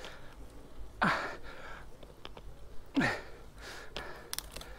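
A cyclist breathing hard while pedalling uphill: two loud exhalations about two seconds apart, each falling in pitch. A few sharp clicks come near the end.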